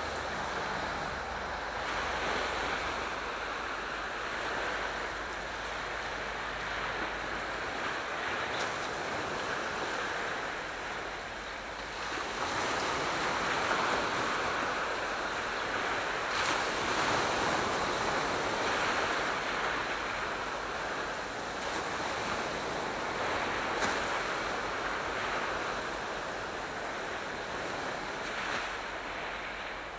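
Aegean Sea waves washing in, a steady rushing that swells and falls back every few seconds.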